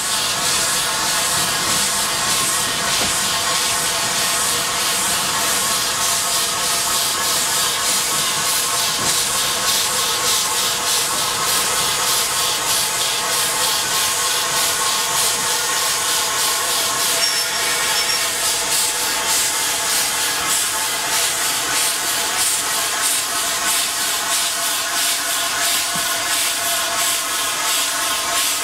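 Mount Washington Cog Railway steam locomotive No. 9 'Waumbek' working along the track, its exhaust chuffing rapidly and evenly over a steady hiss of steam.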